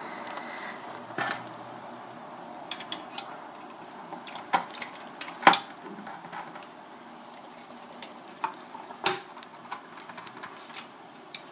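Small metal clicks and taps of screws and a small screwdriver as the X-shaped retention bracket is screwed back onto the back of a graphics card over the GPU chip, with two sharper clinks about five and a half and nine seconds in.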